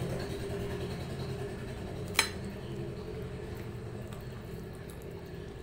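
Fingers mixing dal and rice on a ceramic plate, with one sharp ringing clink against the plate about two seconds in, over a steady low hum.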